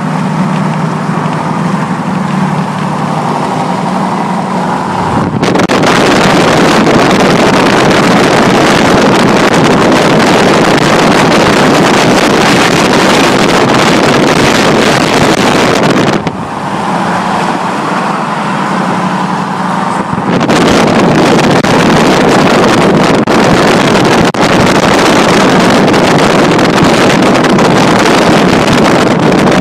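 Car cruising at highway speed, heard from the cabin as a steady engine and road hum. After about five seconds loud wind rushes over the phone's microphone at the open side window. It drops back to the cabin hum for about four seconds in the middle, then returns.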